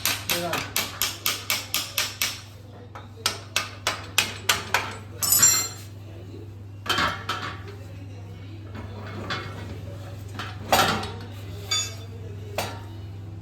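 Hammer striking metal on a motorcycle part: a quick run of sharp, evenly spaced blows, about four a second, then a few more strikes and a scrape, followed by scattered single knocks and clinks.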